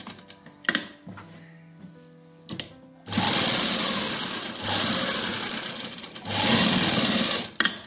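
Sewing machine stitching: a few clicks as the work is handled, then a fast run of needle strokes for about three seconds, a brief pause, and a second run that stops just before the end.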